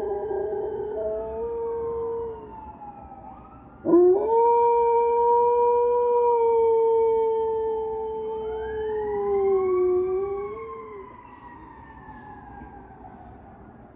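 German Shepherd howling in long held notes, set off by police and fire sirens: one howl ends about two seconds in, and a second starts sharply about four seconds in and is held for about seven seconds, wavering near its end. The sirens wail more quietly underneath, rising and falling in pitch, and the dog is silent for the last few seconds.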